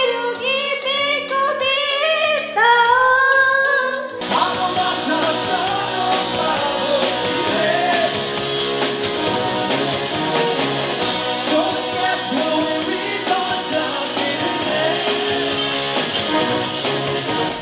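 A song: singing alone for the first few seconds, then about four seconds in a band with drums and electric guitar comes in with a steady beat under the singing.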